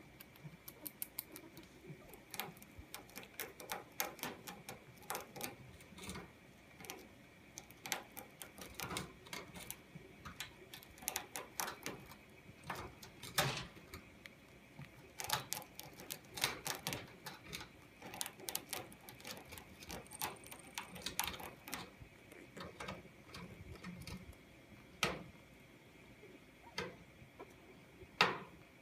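Pet chinchillas in a wire cage making irregular clicks and taps, some in quick little runs of clicks, with sharper knocks now and then.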